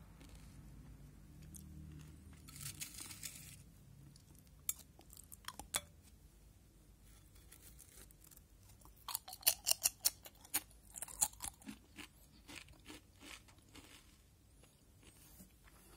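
Potato chips crunched between the teeth close to the microphone: a few scattered crunches, then a rapid run of crisp crunches past the middle that tapers off.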